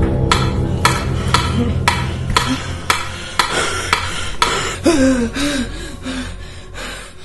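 Film soundtrack: sharp, even ticks about twice a second over a low drone that fades out partway through. A short wavering moan sounds about five seconds in.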